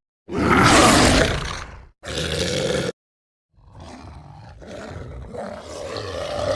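Movie werewolf roar sound effects played as separate clips with abrupt cuts between them: a loud roar of over a second, a shorter one right after, then, after a short silence, a longer, quieter roar that builds in loudness.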